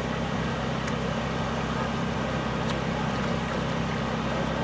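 A steady low engine hum with a constant rushing noise over it, running unchanged throughout.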